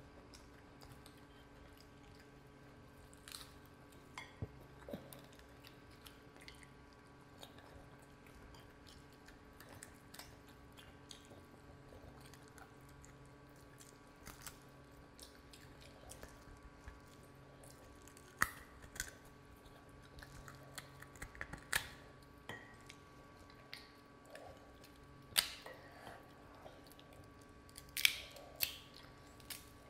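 Close-miked wet squelches and sticky clicks of fingers pulling apart curry-soaked goat head meat, with chewing. The sharp wet clicks come louder and more often in the second half.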